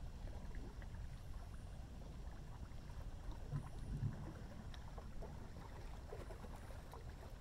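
Faint river ambience at night: water lapping with scattered small splashes over a steady low rumble, and two short low thumps about halfway through.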